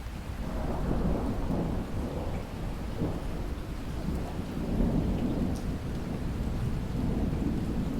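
Steady rain with a long, low rumble of thunder rolling in about half a second in and swelling and fading in waves.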